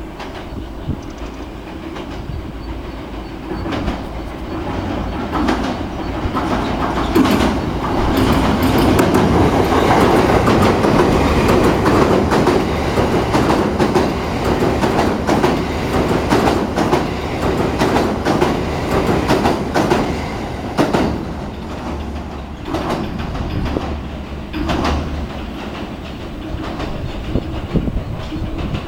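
A train crossing the railway bridge close by. The noise builds over the first several seconds, stays loud through the middle with rapid clickety-clack of wheels over rail joints, then eases off, with a few last clacks near the end.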